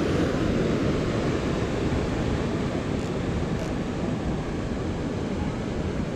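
Steady rush of ocean surf washing around pier pilings, with wind rumbling on the microphone.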